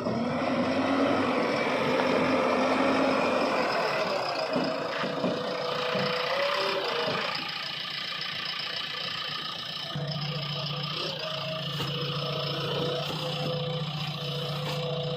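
Diesel engines of a JCB backhoe loader and a tractor running, louder for the first seven seconds, then quieter; a steady low hum sets in about ten seconds in.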